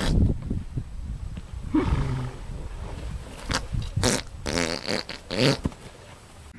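A horse grunting and groaning as it rolls on its back in sand: several short, deep calls, the strongest cluster about four to five and a half seconds in.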